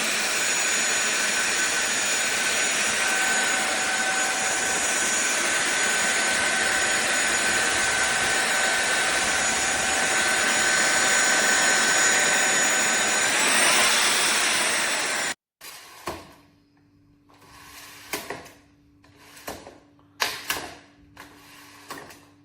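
SunSare X7A cordless stick vacuum cleaner running with a steady whine over its rushing airflow. The whine rises in pitch near the end, then the vacuum cuts off abruptly. A few quieter clicks and knocks follow, along with a faint hum.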